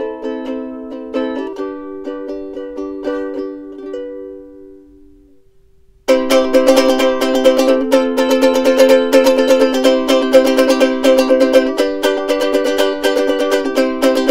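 Soprano ukulele music. A plucked passage slows and its notes ring out and fade about four seconds in; after a short pause a louder, busier passage starts abruptly about six seconds in.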